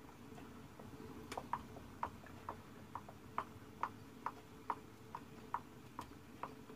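Light, regular ticking, a little over two a second, from a glass canning jar rattling against the pot in boiling water, over a faint steady hum.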